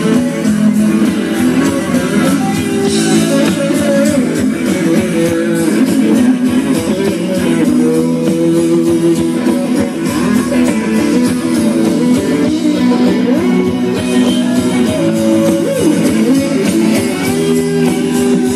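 Live rock band playing an instrumental passage: electric guitars to the fore over bass and drums, with no singing.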